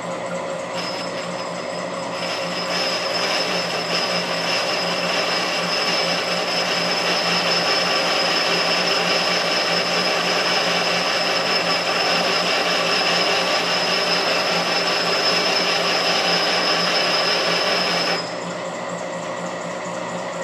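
A machine running while it cuts the face of a steel sawmill saw collar. A steady high-pitched squeal and cutting noise start about a second in and stop abruptly near the end, leaving the machine still running.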